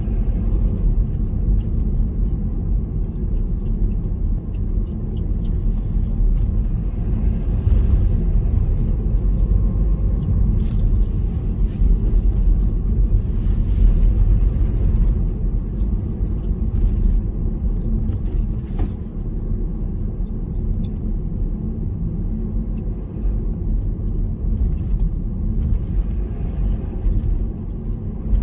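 Car driving on paved streets: a steady low rumble of engine and tyre noise, with a few seconds of added hiss around the middle.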